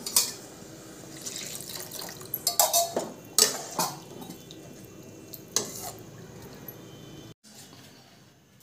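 Metal spatula stirring thin, freshly watered kurma in a steel kadai: liquid sloshing, with several sharp clinks and scrapes of the spatula against the pan.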